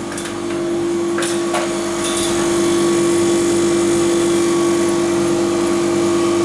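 Fridge refrigeration unit running after its refrigerant charge: a steady, pitched motor hum, with a couple of light knocks about a second in.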